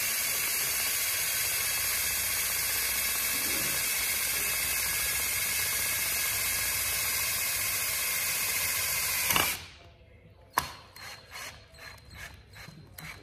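Cordless drill running steadily under load into a plastic armrest base for about nine seconds, then stopping suddenly. It is followed by a run of light clicks, about three a second.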